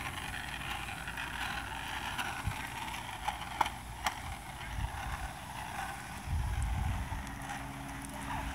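Small board wheels rolling on asphalt with a steady rumble, and a couple of sharp clicks about four seconds in as a caster board crosses a speed bump. Wind buffets the microphone in a low rumble near the end.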